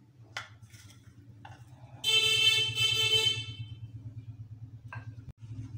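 A vehicle horn sounds once, a steady held tone lasting about a second and a half, over a steady low hum. A few faint clicks are heard before and after it.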